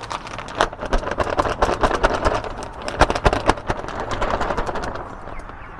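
Crunching and rustling of mulch being handled and spread, with a dense run of scattered clicks that thins out near the end.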